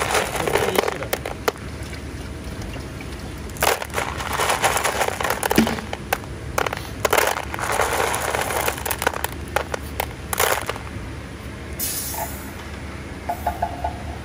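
Hard stone beads clattering against one another and the plastic colander as a hand stirs through a heap of freshly milled beads, in quick clusters of clicks that stop near the end, over a steady low hum.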